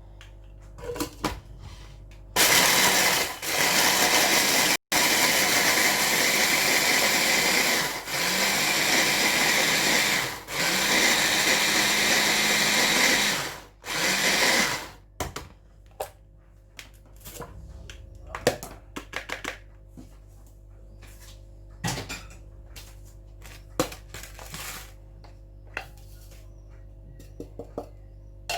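An electric blender or food processor grinding dry biscuits into crumbs, run in several bursts with short stops over about twelve seconds. After it stops come light clicks and knocks of handling.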